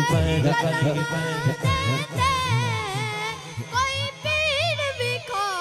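A boy's high voice singing a long, wavering, ornamented melodic line of a Punjabi manqabat into a microphone, over a rhythmic musical backing.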